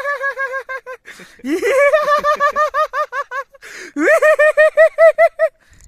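A person laughing on request in three high-pitched runs of rapid "ha-ha-ha", about seven beats a second. The second and third runs each open with a rising note.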